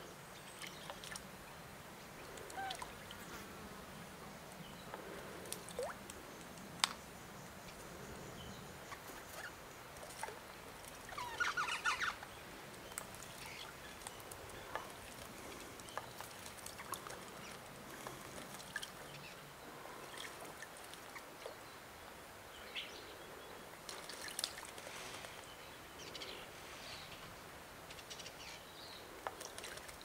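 Australian magpie bathing in a bird bath, its wings and body splashing the water in short, irregular bursts. The loudest flurry comes just before the middle.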